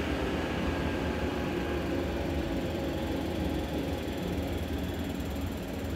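Steady low machine hum with an even fan-like hiss from the powered-up Bridgeport Torq-Cut CNC milling machine standing still.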